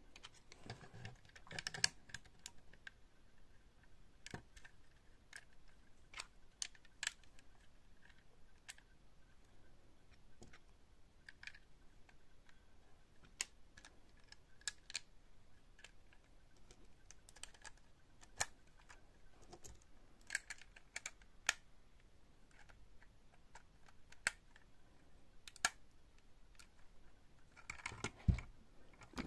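Plastic LEGO bricks clicking as pieces are handled and pressed together, in scattered, irregular sharp clicks, with a short clatter and a dull knock near the end.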